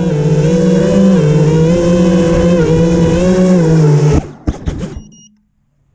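A motor running at a steady pitch that shifts up and down in small steps. It cuts off about four seconds in, with a few clicks before going quiet.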